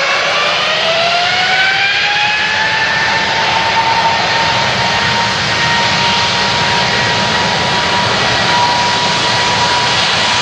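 Boeing 777-200's twin jet engines spooling up to takeoff thrust. The engine whine rises in pitch over the first three seconds, then holds steady over a loud, even roar.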